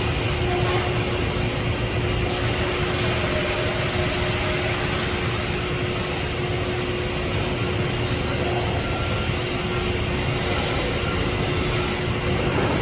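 Steady machine drone: a low rumble with a constant hum, unchanging throughout.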